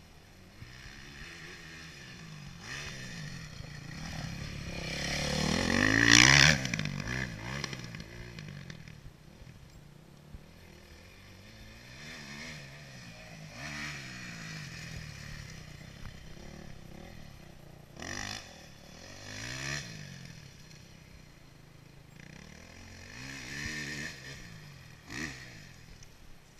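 Dirt bike engines revving on a motocross track: one bike passes close and loudest about six seconds in, its engine pitch climbing then dropping as it goes by. After that the engine note keeps rising and falling farther off as riders accelerate and back off around the track.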